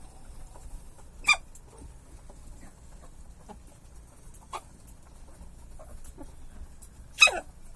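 Domestic chicken sneezing: short, sharp sneezes, two loud ones about six seconds apart with a fainter one between.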